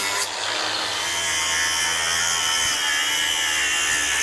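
Angle grinder running steadily with a high whine, its disc grinding through a corroded outboard steering cable's metal casing.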